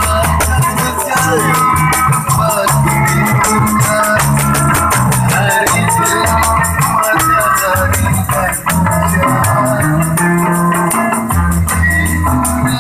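Instrumental band music: an organ-like electronic keyboard melody over a stepping bass line, with drums and a steady shaker beat.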